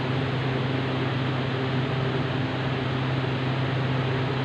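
A steady electric motor hum over a rush of air noise, from a running fan or cooler. It holds the same level throughout, with no change.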